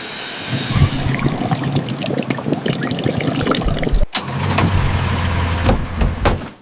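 Dense crackling and rumbling noise with many small clicks. It cuts out for a moment about four seconds in, then returns with a deeper, steadier rumble.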